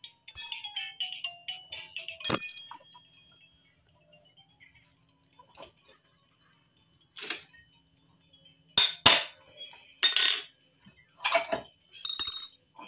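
Metal tools and parts clinking against each other: a string of separate sharp clinks, several leaving a high ringing tone. The loudest comes about two seconds in and rings on for about a second.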